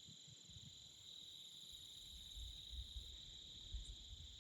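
Faint, steady high-pitched trilling of insects such as crickets, with an uneven low rumble underneath.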